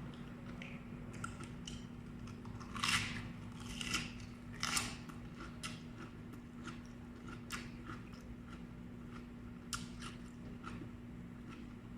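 Chewing raw vegetables (lettuce and broccoli): crisp crunches, the three loudest a few seconds in, then a run of smaller crunches, over a steady low hum.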